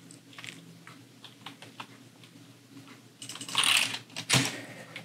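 Light clicking of a computer keyboard and mouse at a desk, with a short rustling hiss about three and a half seconds in and a sharp knock just after it.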